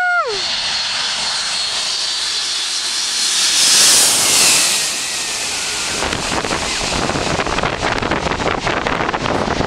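Boeing 747-400's four jet engines passing low overhead on landing approach. A loud hiss and whine swells to a peak about four seconds in, the whine drops in pitch as the jet goes over, and then a rough rumble follows as it moves away toward touchdown.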